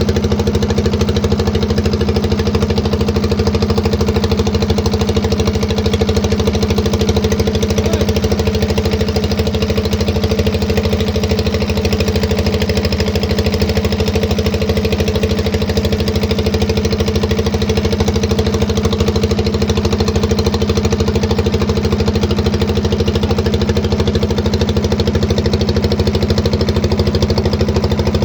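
Boat engine running loud and steady at an unchanging speed, a fast even chugging with no let-up.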